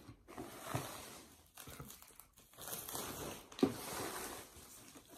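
Paper or plastic packaging crinkling and rustling as it is handled and unwrapped by hand. It comes and goes irregularly, with a sharp crackle a little past halfway.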